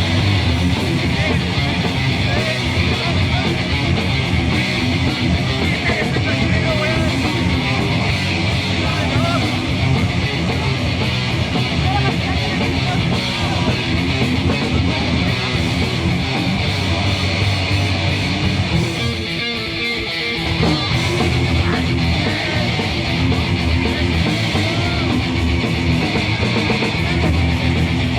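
A heavy metal band playing live: distorted electric guitars, bass and drums driving a fast riff. The riff breaks off briefly about two-thirds of the way through, then comes back in.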